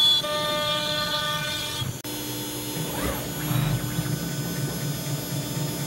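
CNC router spindle running and cutting walnut, a steady whine of several tones that cuts off abruptly about two seconds in, followed by a lower, steadier hum and rumble from the router at work.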